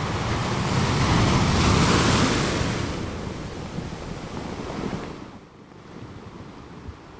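Rush of a sea wave, swelling for about two seconds and then washing away, fading by about five seconds in into a fainter hiss.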